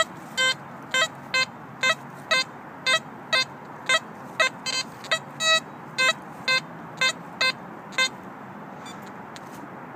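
XP Deus metal detector sounding short beeps as the coil is swept over the ground, about two a second, mostly at one pitch with a few higher, stopping about eight seconds in. These are target responses on ground thick with buried iron.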